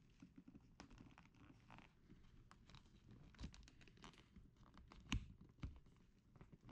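Faint rustling and creaking of a vinyl seat cover being pulled and pressed by hand onto a car seat's frame, with scattered small clicks and one sharper click about five seconds in.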